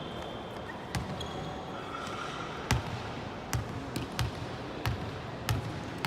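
A volleyball bouncing on the court floor: a string of sharp thuds, mostly about half a second apart, over a steady murmur of a sports hall. A brief squeak, like a shoe on the floor, comes about two seconds in.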